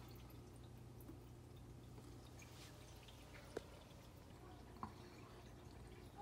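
Near silence: the quiet low hum and faint water trickle of an aquarium filter, with two faint ticks in the second half.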